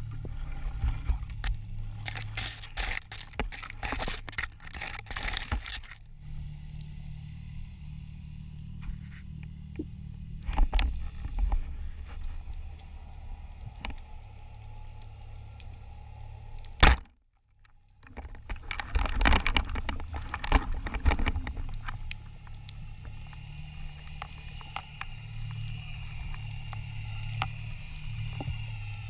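Underwater sound through a camera housing: a steady low rumble of water and the diver's movement, with bouts of rattling clicks. About 17 seconds in comes a single sharp, loud crack, the speargun firing its shaft, followed by a brief dropout and then more clicking and rattling as the line pays out.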